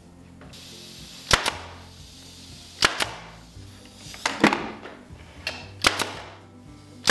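Power stapler firing staples into a wooden 1x4 trim board, about five sharp shots roughly a second and a half apart, some as quick double shots, over background music.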